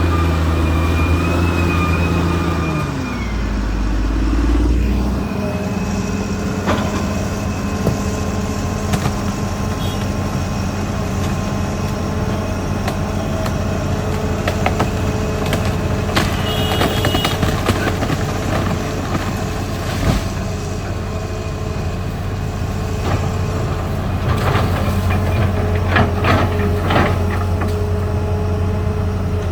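Caterpillar D6R XL bulldozer's diesel engine running steadily, its pitch dropping about three seconds in, with scattered sharp knocks and a cluster of them near the end.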